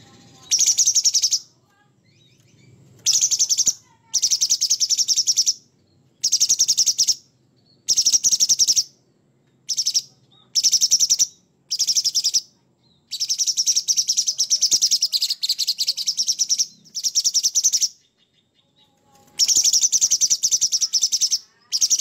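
Caged cucak cungkok, a leafbird, singing vigorously (gacor). It gives loud, high-pitched, rapid chattering phrases about a dozen times, mostly a half-second to a second or so each, with one longer run of about three and a half seconds past the middle.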